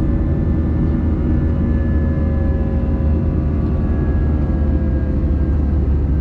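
Jet airliner cabin noise during the climb: a steady, loud low rumble of the engines and rushing air, with several faint whining tones that drift slightly in pitch.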